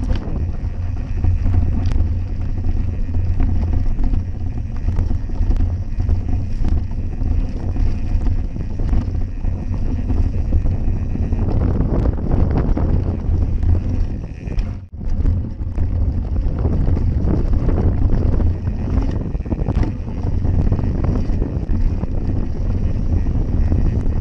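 Wind buffeting a bike-mounted camera's microphone while a mountain bike rides fast down a dirt forest trail, with steady tyre rumble and many small rattles and knocks from the bike over the bumps. The sound briefly drops out about two-thirds of the way through.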